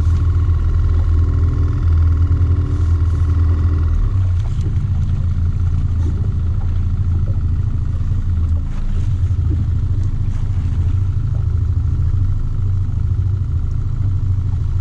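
Boat outboard motor running steadily at low speed, a low hum. Its note changes and eases a little about four seconds in.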